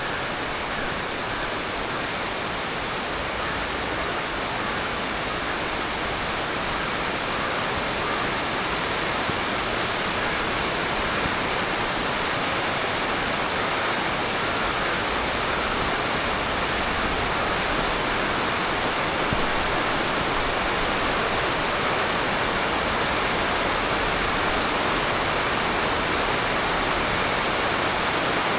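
Heavy tropical monsoon rain falling steadily in an even, unbroken hiss, growing slightly louder over the stretch.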